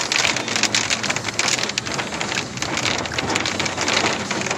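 Heavy rain mixed with hail pelting a pickup truck's roof and windshield, heard from inside the cab as a dense, steady patter of many small, sharp strikes.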